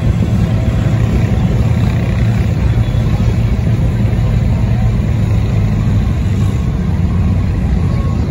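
Large engine of a mud-bogging truck or swamp buggy running steadily with a loud, low rumble.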